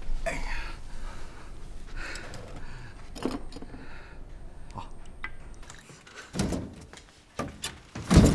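Faint low voices and small handling sounds, then two heavy thumps, one about six seconds in and a louder one near the end.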